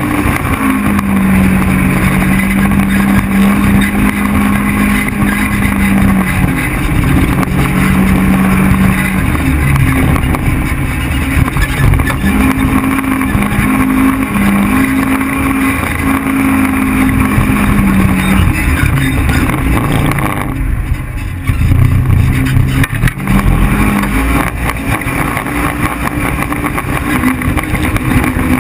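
Polaris RZR 1000 side-by-side's engine heard from onboard while driving sandy trails, running under changing throttle, its drone stepping up and down in pitch, with wind and trail noise over it. About two-thirds through the higher sounds drop away briefly while the low rumble carries on, then the full sound returns.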